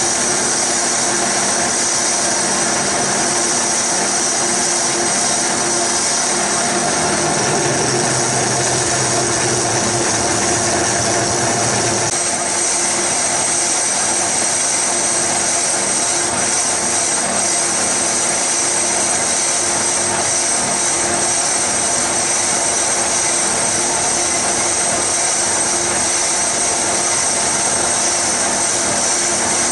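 Small bench lathe running with its tool facing a cast iron backing plate: a steady motor whine over the cutting noise. A low hum drops away about twelve seconds in.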